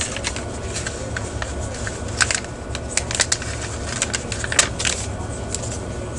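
A small plastic parts bag crinkling and rustling as it is handled and opened to take out a replacement power transistor. Irregular sharp clicks and rustles are spread through it, loudest about two, three and four and a half seconds in, over a steady low hum.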